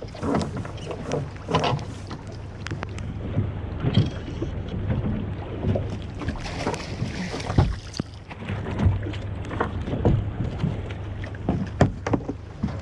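Water splashing and slapping at the side of a small fishing boat as a hooked fish thrashes at the surface and is netted. Repeated short knocks and clatter sound on the boat, with wind on the microphone over a steady low hum.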